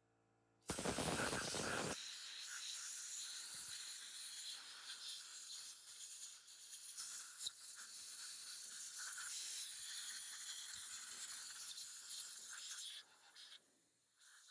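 Pressurised spray hissing: a loud rush about a second in, then a long steady hiss that fades out near the end.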